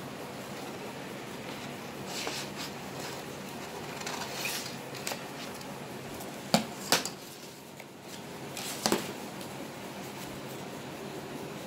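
Craft materials handled on a tabletop: a sheet of paper shuffles softly, then small hard objects are set down with a few sharp clacks, two close together and one more about two seconds later.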